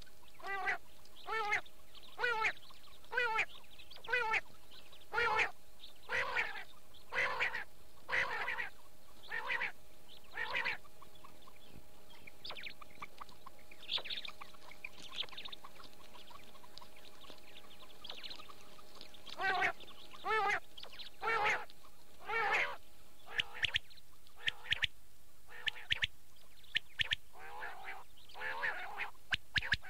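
Quail (batair) calling over and over, short warbling calls about once a second, with a pause in the middle; near the end the calls give way to a run of sharp clicks. A faint steady hum lies underneath. It is a quail call recording of the kind played to lure quail when hunting.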